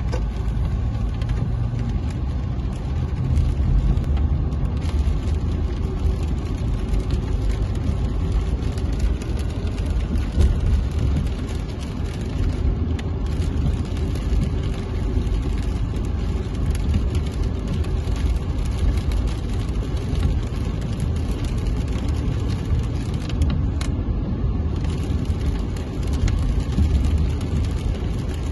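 Car driving on a wet road in the rain, heard from inside the cabin: a steady low rumble of engine and tyres with a hiss of spray and rain.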